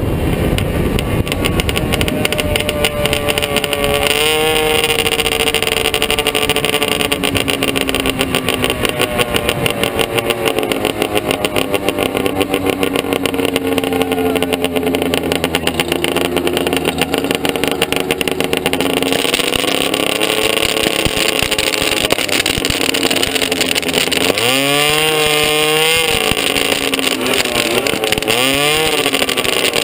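Modified wheelstanding golf cart engines running, their pitch drifting up and down. About 24 s in an engine revs up sharply and holds for a couple of seconds, then revs once more briefly near the end, as a cart does a tyre-smoking burnout.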